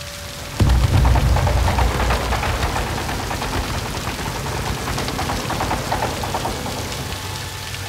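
Heavy rain pouring down, with a deep rumble that sets in suddenly about half a second in and slowly eases off.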